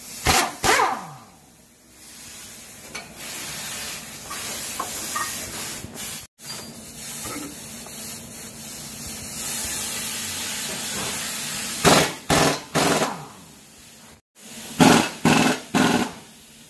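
Workshop noise while a shock absorber and coil spring are fitted to a Suzuki Alto: a steady hiss with short, loud bursts, twice at the start and in two quick groups of three near the end.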